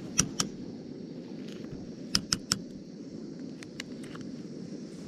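A spoon clinking against a cooking pot while risotto is stirred: sharp metallic taps in short groups, two near the start and three about two seconds in, over a steady low rumble.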